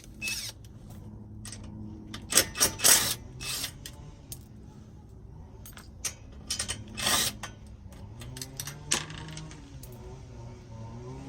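Metal tools and exhaust parts clinking and clattering as they are handled, with the loudest clatters a couple of seconds in and again around seven seconds, over a steady low hum.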